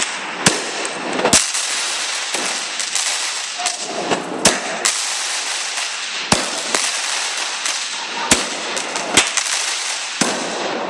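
Aerial fireworks bursting: a continuous dense crackle with about six sharp, loud bangs at uneven intervals of one to two seconds.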